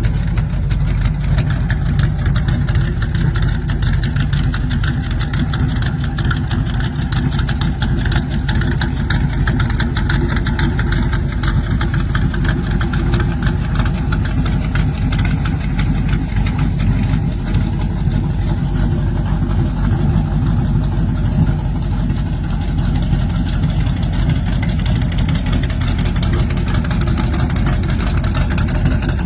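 Gasser drag car's engine idling loud and steady, with rapid exhaust pulses and no revving.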